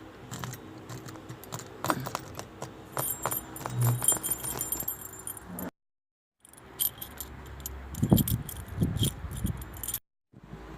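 Foley metal jangling and rattling: clusters of sharp clinks with a few heavier clanks near the end. The sound cuts out abruptly to silence for a moment a little past halfway.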